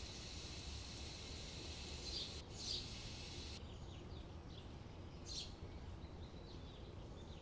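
Potato patties shallow-frying in hot oil in a nonstick pan: a faint sizzling hiss with a few small crackles and pops, thinning out about three and a half seconds in.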